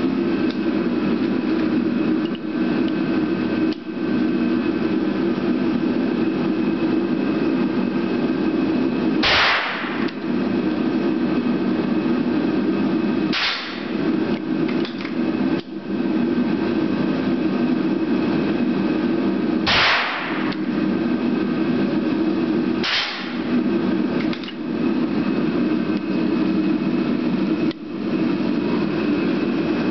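Four shots from a Martini Cadet single-shot rifle rechambered to .32 Winchester Special, the first two about four seconds apart and the last two about three seconds apart, over a steady low hum. Between the shots come fainter clicks as the falling-block lever is worked to reload.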